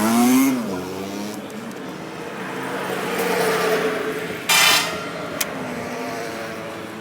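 Road traffic, a motor vehicle's engine note rising then falling as it passes, with a short, loud burst about four and a half seconds in.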